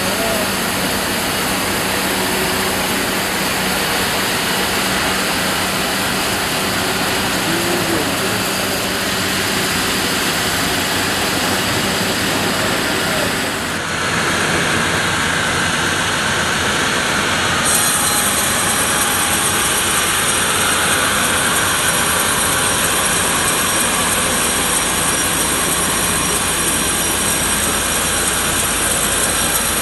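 Sawmill machinery running loudly and steadily, a continuous mechanical noise whose tone changes abruptly about 14 and 18 seconds in.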